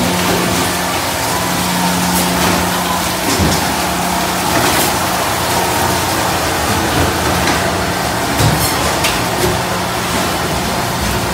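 Steady din of fish-processing machinery on a factory trawler: electric motors, conveyors and a fish-heading machine running, with a constant low hum and occasional clanks and knocks.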